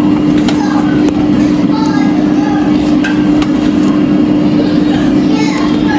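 Steady motor hum with one strong low tone, from a running kitchen appliance, with faint scrapes of a wooden spatula stirring eggs in a pan.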